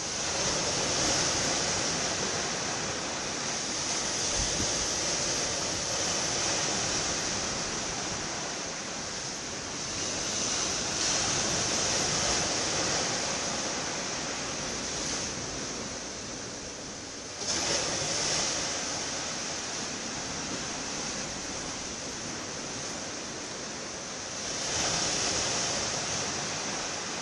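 Continuous rushing wash of sea water and wind, with no tones in it. It swells and eases irregularly and jumps suddenly louder about seventeen seconds in.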